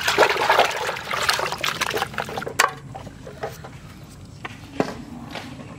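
Hands washing raw chicken in an aluminium bucket of water, sloshing and splashing for the first two and a half seconds. Then a sharp click and a few light taps as a knife cuts the chicken on a steel plate.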